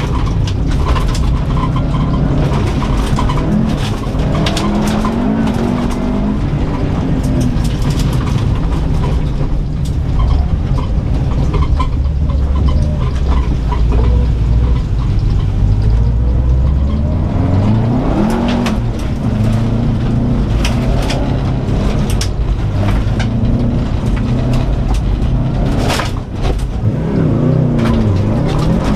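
2004 Subaru WRX STI's turbocharged flat-four engine heard from inside the cabin, running hard with revs rising and falling through the gears, with one long climb in revs a little past halfway. Sharp clicks of gravel and dirt strike the underside of the car throughout.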